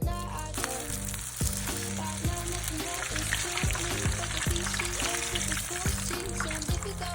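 Spam and cheese deep-frying in hot oil: a dense, steady crackling sizzle that starts about half a second in. Background music with a steady beat plays underneath.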